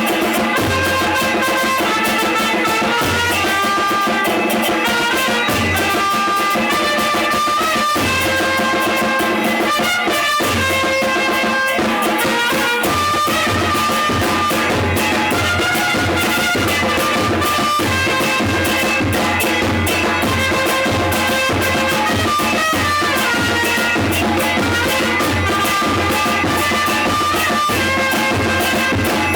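Two trumpets playing a tune over a murga beat on a snare drum and a bombo murguero bass drum, the bass drum giving a steady pulse of low thumps throughout.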